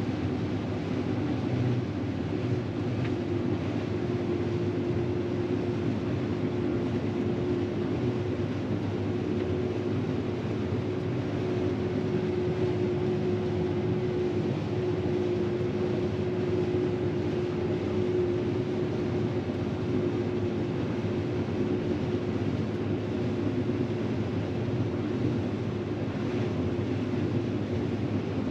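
New Holland CX combine harvester running steadily while harvesting grain, a constant machine hum with one held tone over a low rumble.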